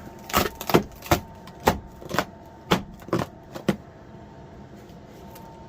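Irregular series of sharp knocks or taps, about ten in the first four seconds, over a faint steady hum.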